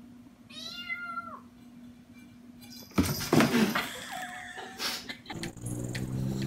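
Kitten meowing once, a long meow that falls in pitch, about a second in. About three seconds in, a sudden loud burst of noise takes over and is the loudest sound.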